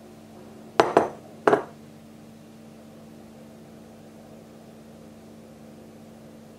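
Three sharp knocks close together about a second in, over a steady low hum.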